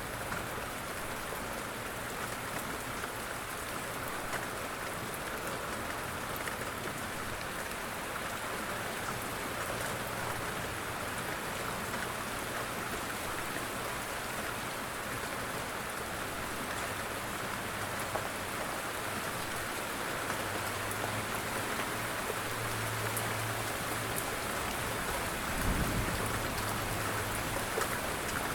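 Steady rain falling on a surface, an even hiss with scattered drop ticks. A brief low thump comes near the end.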